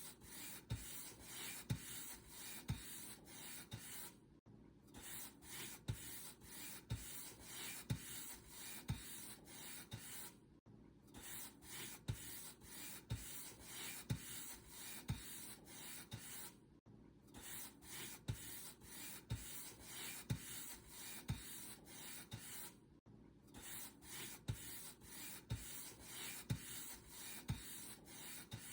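Paint brush bristles swept repeatedly across a surface in steady back-and-forth strokes, about one and a half a second, with a short pause roughly every six seconds.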